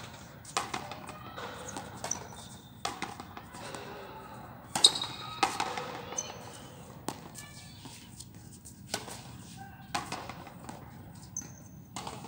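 Frontenis play: sharp knocks of the ball off the rackets and the concrete front wall, about one a second, with the loudest about five seconds in.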